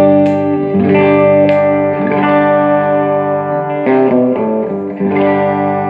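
Electric guitar played through a Fender Blues Junior valve combo amp: chords struck and left ringing, a new chord roughly every second or so.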